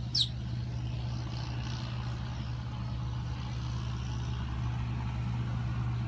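Steady low mechanical hum, with one short, falling bird chirp just after the start.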